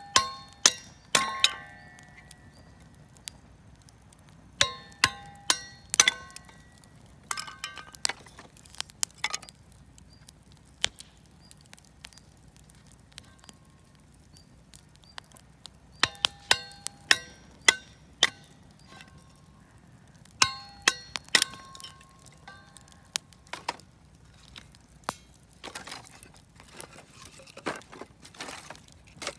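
Sharp metallic clinks in bursts of several strikes, each ringing briefly at the same few pitches, with a few seconds' pause between bursts. Near the end come duller knocks.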